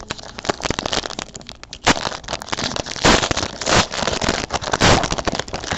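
Trading card pack wrapper being crinkled and torn open by hand, a dense run of crackling rustles with louder tearing surges about two, three and five seconds in.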